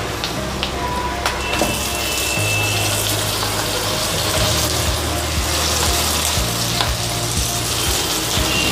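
Boiled pork pieces dropped into hot mustard oil with onion and tomato in a kadai, sizzling steadily. The sizzle grows fuller about a second and a half in as more meat goes into the pan.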